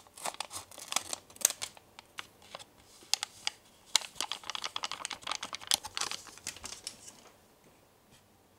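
A Konapun powder sachet crinkling and crackling in the fingers as it is opened and shaken out over a small bowl, a quick run of sharp ticks and rustles that stops about seven seconds in.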